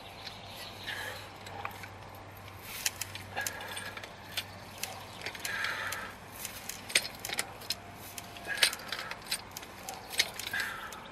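Irregular metal clicks and clinks of a pipe wrench gripping and being reset on the steel shaft of a helical earth anchor as it is turned into the ground by hand. The clicks come thick and fast from about three seconds in.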